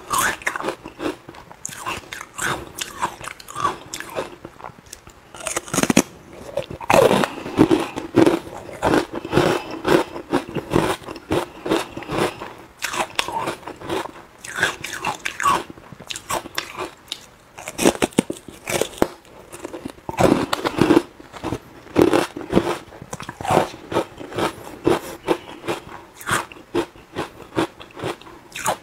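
Ice cubes coated in matcha powder being bitten and chewed close to a clip-on microphone: a dense run of sharp, crisp cracks and crunches.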